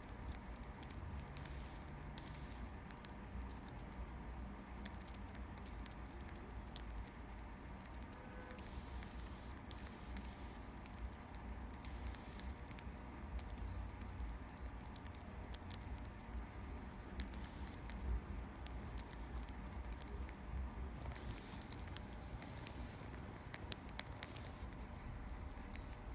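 Budgerigar eating from a plastic tub of seed: its beak picks at and cracks the seeds in a run of small, irregular clicks and crackles.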